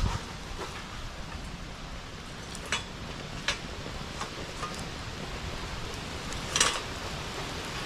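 Bonfire burning with a steady hiss and scattered sharp crackles and pops, the loudest pop near the end.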